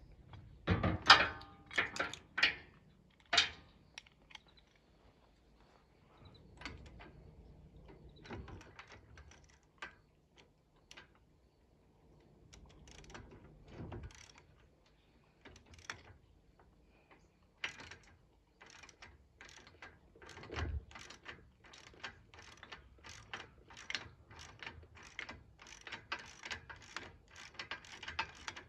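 Hand ratchet wrench clicking in runs as bolts are turned, after a few loud metallic clanks early on. The clicks come in quicker, steadier runs in the last few seconds.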